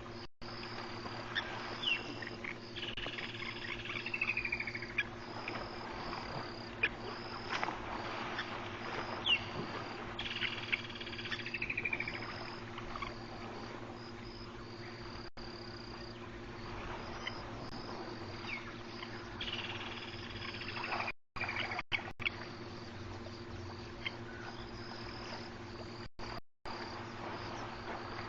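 Night chorus of insects and frogs at a waterhole: a high-pitched call pulses steadily throughout, and a falling trill comes three times, about every seven to nine seconds.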